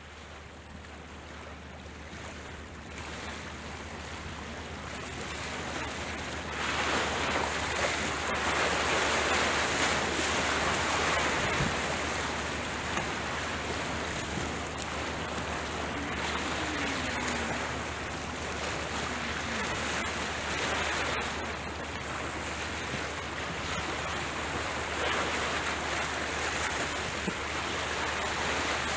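Steady rushing of wind and waves on an open shoreline, with a low wind rumble on the microphone. The noise fades in at the start and grows louder about seven seconds in.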